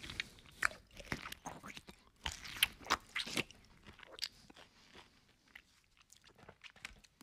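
Close-miked chewing of a mouthful of hard-boiled egg and rice, with many sharp, irregular wet clicks and crackles from the mouth and fingers. They are busiest in the first three and a half seconds and thin out after.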